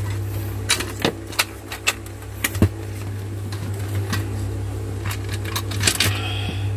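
Irregular sharp clicks and knocks of a Makita cordless drill's plastic housing being handled and pulled apart, over a steady low hum.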